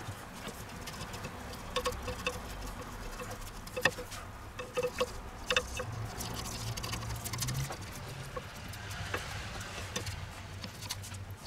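Thin spring roll wrapper batter crackling faintly in a hot nonstick frying pan, with a few sharp clicks and taps, the clearest about two, four and five and a half seconds in, as a plastic slotted spatula works the wrapper loose from the pan.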